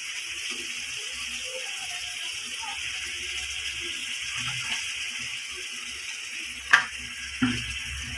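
Chicken liver frying in oil in a steel kadhai: a steady sizzle. Two sharp clicks of the spatula against the pan come near the end.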